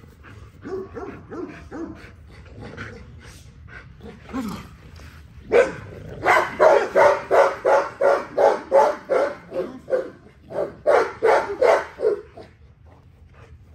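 Pitbull-type dog barking excitedly at play in a fast run of about four barks a second, lasting several seconds from about halfway in, with a short break near the end. Softer whining comes before the barks.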